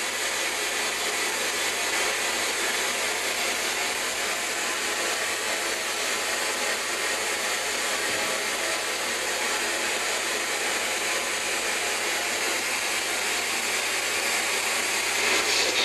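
Steady, even hiss of static like white noise, unbroken and level throughout, with a faint low hum under it.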